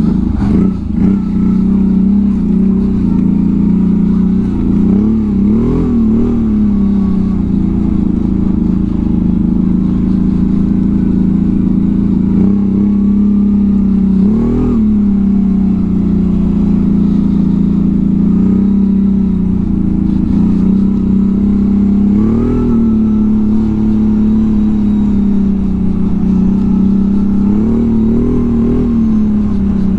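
Can-Am Outlander 1000's V-twin engine running at a steady working pitch as the tracked ATV pulls through deep snow, with four brief rises in revs along the way.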